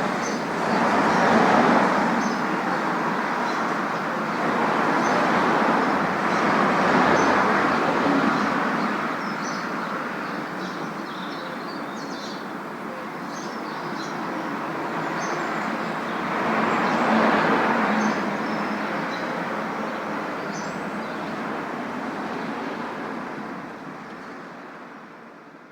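Busy urban road traffic: a steady wash of vehicle noise with vehicles passing by in louder swells, about three times, while small birds chirp above it. The sound fades down near the end.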